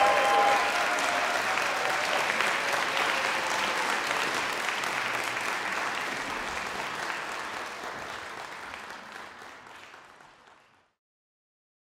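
Concert hall audience applauding after an orchestra performance, a steady clapping that fades away and is gone about eleven seconds in.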